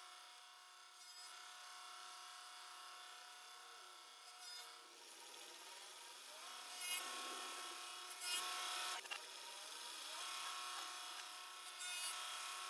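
Woodworking power tool motor running with a steady whine while it works wood, a few sharp clicks and scrapes over it, the whole played backwards.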